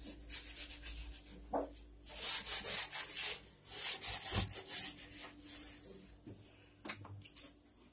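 A sponge rubbing over the stainless steel top and sides of a gas stove in repeated back-and-forth scrubbing strokes, coming in several spells with short pauses between. There is a light knock near the end.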